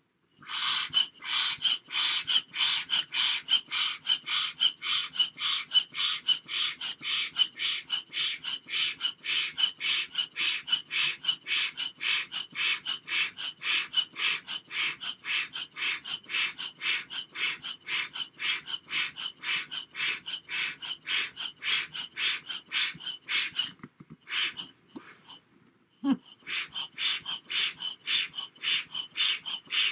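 Manual air pump pushing air through a hose into a vinyl bop bag: rhythmic hissing puffs with a faint whistle, about three to four strokes a second. The pumping pauses for a couple of seconds near the end, then starts again.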